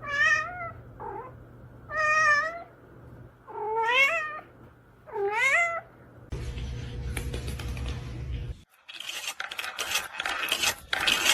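A domestic cat meowing four times, each a drawn-out, wavering call, about one and a half to two seconds apart. This is followed by a few seconds of noise with quick clicks and clatter.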